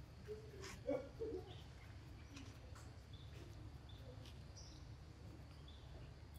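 Quiet outdoor ambience: faint, brief bird chirps now and then over a steady low hum, with a few faint low sounds in the first second and a half.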